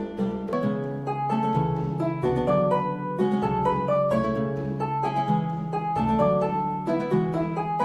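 Instrumental music: a quick run of plucked string notes over held low notes.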